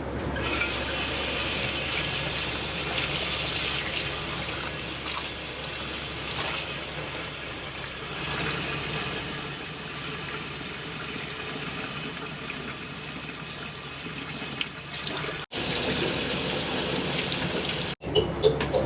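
Kitchen tap running water in a steady rush into a sink, cut off abruptly twice near the end.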